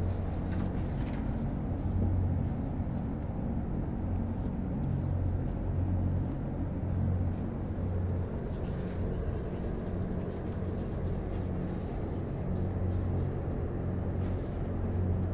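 Steady low mechanical hum that swells and fades every couple of seconds, with faint rustles and ticks from tomato plants and their support strings being handled.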